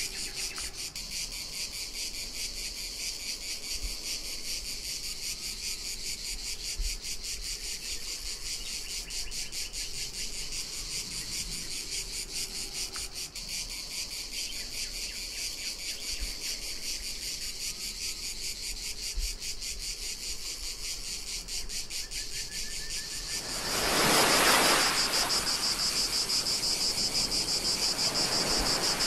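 Cicadas buzzing in a dense, steady chorus. About 24 seconds in, a louder rushing wash of sea water comes in over them.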